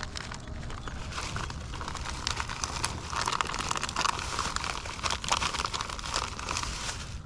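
Close crinkling and crackling with many small clicks as cut shad bait is handled and put on a hook. It stops abruptly at the end.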